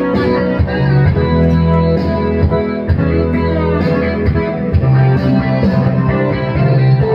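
Loud karaoke backing track playing an instrumental passage led by guitar, with a steady bass line.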